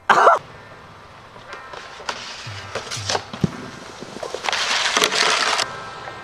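Snowboard sliding and scraping over packed snow, with a long harsh scrape near the end, over background music with a low beat. A short loud burst comes right at the start.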